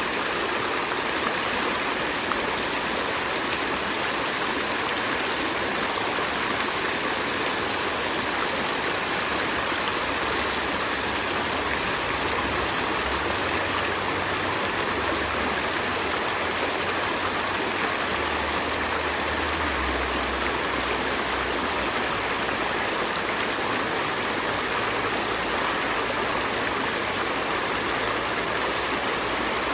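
Gentle river stream flowing steadily, an even rushing and burbling of water.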